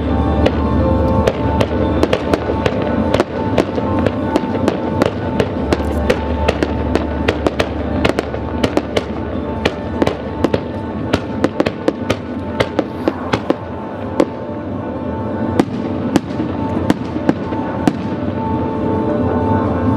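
Fireworks bursting and crackling in quick succession, many sharp cracks a second, over loud show music.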